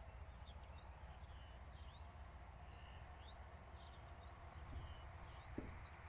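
Birds chirping faintly in the background: short rising and falling whistled notes, several each second, over a low steady rumble.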